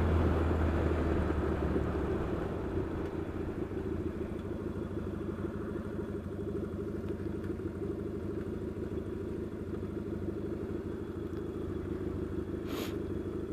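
Yamaha XS650 parallel-twin motorcycle engine with cocktail-shaker exhaust pipes, dropping back from road speed over the first couple of seconds as the bike pulls in, then idling steadily. A brief rushing noise comes near the end.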